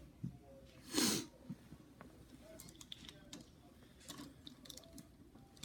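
Faint clicks and handling noises from a plastic Transformers action figure being moved and posed, with one short, louder burst of noise about a second in.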